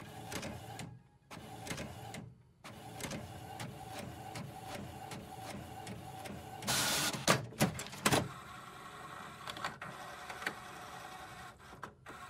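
Desktop printer printing a page: the feed motor whirring under a dense run of mechanical ticks, with a louder rush of noise about seven seconds in followed by two sharp clacks.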